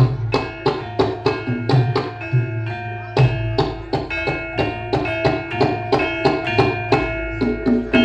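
Javanese gamelan music: bronze keyed and gong-chime instruments struck in a quick, steady stream of ringing notes, with a hand drum thumping underneath.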